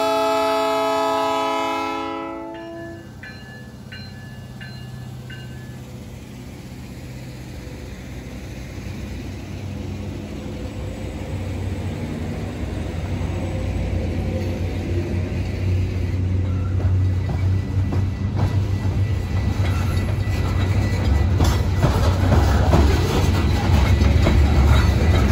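A diesel freight locomotive's horn sounds a chord and cuts off about two seconds in. Then the train rolls past: a low diesel rumble and wheels clicking over the rail joints, growing steadily louder as the covered hopper cars go by.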